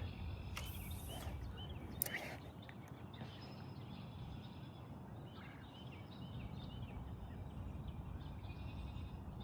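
Small birds chirping repeatedly over a steady low rumble, with a sharp click about two seconds in.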